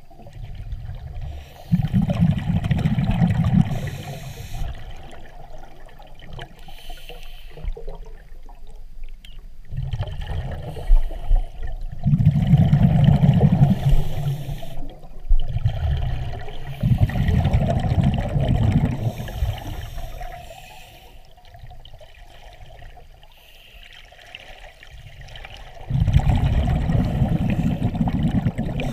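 Scuba regulator heard underwater: exhaled air bubbling out in loud bursts of a few seconds each, repeating every several seconds with quieter breaks between breaths.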